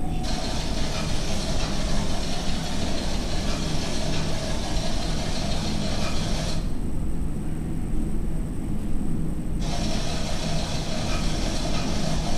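Steady low rumble with a hiss over it, like engine noise played as an exhibit's sound effects. The hiss cuts out abruptly about six and a half seconds in and comes back three seconds later.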